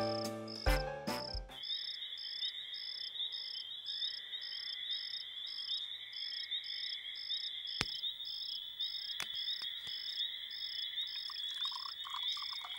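Night chorus of crickets and frogs: a steady high trill with a regular chirp about two or three times a second, after a music cue ends about a second and a half in.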